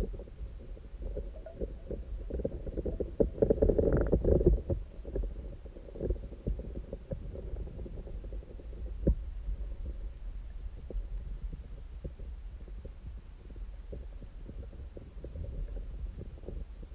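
Muffled low rumble and irregular knocking picked up underwater by an action camera in its waterproof housing, as water moves around it. The sound swells about three to four seconds in, and there is one sharp knock about nine seconds in.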